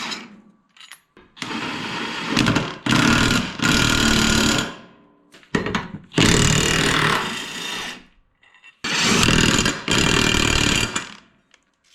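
Power tool, most likely an impact wrench, run in four short bursts of about a second or two each, with pauses between. It is likely working the blade bolts during a mower blade change.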